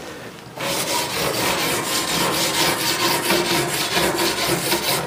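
Rapid, rhythmic scraping or rubbing, several quick strokes a second, starting about half a second in.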